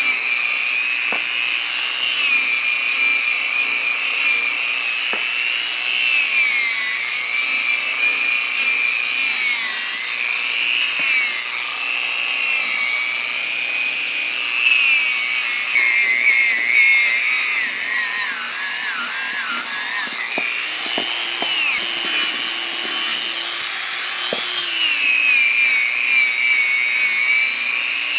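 Electric power tool working wood, a high-pitched whine that dips and rises in pitch as the load changes, with a few light knocks.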